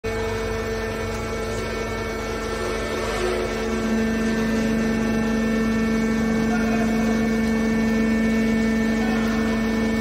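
Hydraulic scrap metal baler's power unit running with a steady droning hum made of two strong held tones; the lower tone grows louder about four seconds in.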